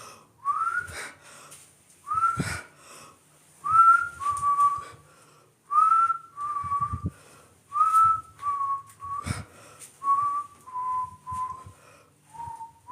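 Someone whistling a slow tune: short clear notes in pairs, a rising swoop followed by a steady note, repeated about every two seconds, with a few faint knocks in between.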